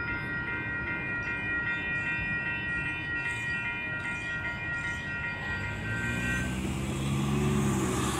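Railroad crossing warning bell ringing in a steady repeating ding, about two a second, while the crossing gates lift. It stops about six seconds in, as the gates come upright and the crossing clears. Near the end a vehicle engine climbs in pitch as traffic pulls across the tracks.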